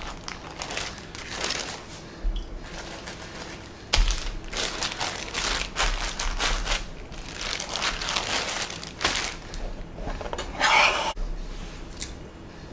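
Plastic wrap crinkling and rustling in irregular bursts as a bamboo sushi mat is pressed over a cut sushi roll to shape it, with a sharp knock about four seconds in.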